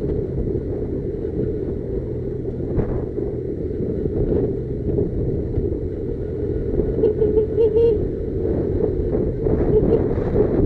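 Motorcycle engine running steadily under way, a constant low rumble, with wind buffeting the microphone.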